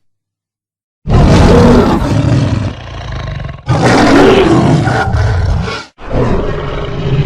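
Custom-made Vastatosaurus rex dinosaur roar sound effect: after a second of silence, three deep, loud roars follow one another almost without a break.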